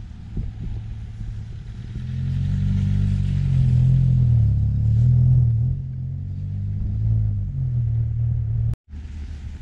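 A motor vehicle's engine running close by, its pitch wavering up and down, growing louder about two seconds in and easing off later. The sound cuts off suddenly near the end.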